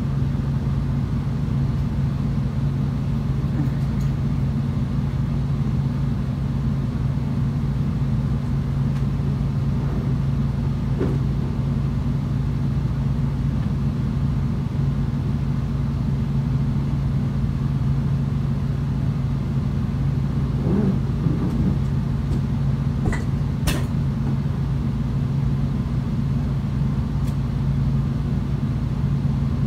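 Steady low mechanical hum, with a few faint clicks about two-thirds of the way in.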